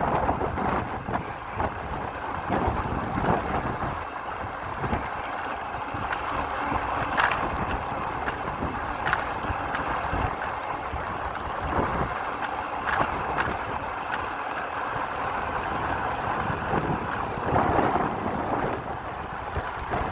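Wind buffeting the microphone of a camera on a moving e-bike in rain, over a steady rushing hiss, with a few sharp ticks.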